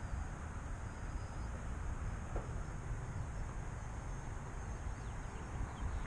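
Gusty wind buffeting the microphone as a low, uneven rumbling rush, with a faint steady high-pitched tone above it.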